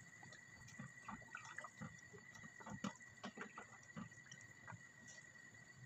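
A wooden spatula stirring a pot of macaroni and vegetable soup, faint: soft wet sloshes of the broth and a scatter of light taps of the spatula against the pot, thinning out near the end.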